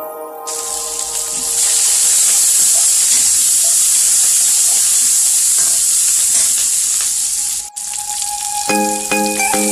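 Chopped onion and green chillies frying in hot oil with tempered mustard seeds and urad dal in a steel kadai, a steady loud sizzle as a slotted ladle stirs them. The sizzle drops out for a moment near the end, and music then comes in over it.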